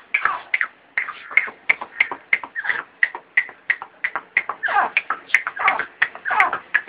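Pet Dakhni tetar (francolin) giving a rapid series of short, sharp calls, about three a second, with a few longer falling notes among them.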